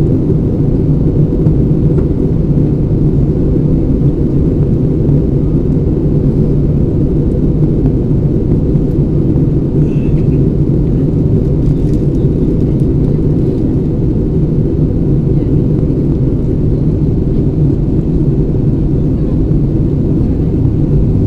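Steady low rumble of an Airbus A320 airliner's cabin in flight: engine and airflow noise heard from inside the cabin at a window seat.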